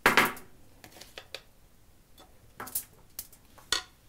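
A spoon clattering and scraping against a bowl and aluminium foil as chopped vegetables and feta are spooned out and spread: a rustling clatter at the start, then several short clicks and taps.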